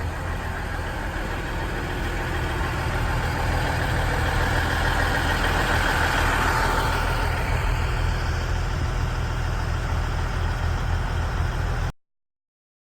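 Diesel engines of a four-car KiHa 110 series railcar train running, growing louder to a peak about halfway through, then cutting off suddenly near the end.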